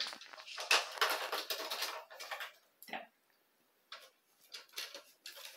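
Light clicking and rustling, busiest in the first two seconds or so, then a few scattered single ticks.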